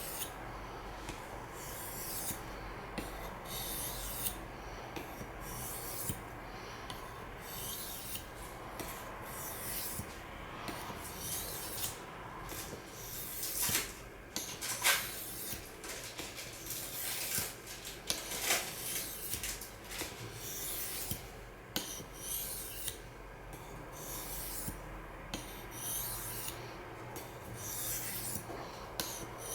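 Steel knife blade (CPM S30V) stroked back and forth on a water sharpening stone, a repeated gritty scraping at roughly one stroke a second.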